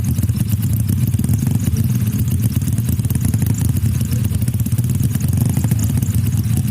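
Motorcycle engine running steadily, its firing pulses loud and even, with no revving up or down.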